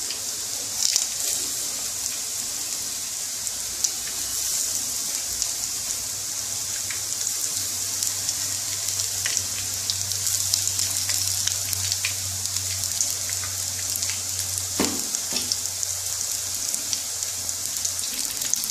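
Drumstick-flower pakoras in gram-flour batter deep-frying in hot mustard oil in a kadai: a steady sizzle with many small crackles and pops as more fritters are dropped in.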